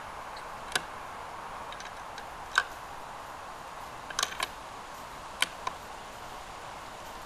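A handful of separate light clicks and taps, with a quick cluster of three just past the middle: a bolt-action .308 rifle and its cartridges being handled while fouling rounds are loaded. No shot is fired.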